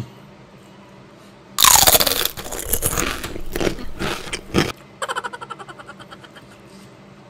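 Loud crunching of food being bitten and chewed, with a knife and fork working on a plate. Near the end comes a quick rattle of small clicks, about ten a second, that dies away.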